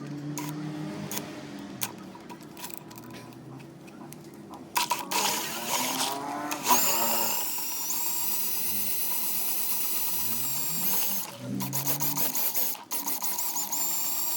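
A small electric motor whines at a steady high pitch, speeding up about five seconds in. It breaks off into short stops and starts around two-thirds of the way through, then runs steady again.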